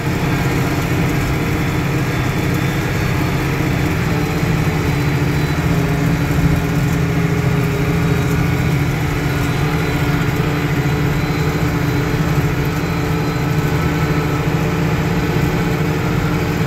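Farm machine's diesel engine running steadily at an even speed, with no change in pitch.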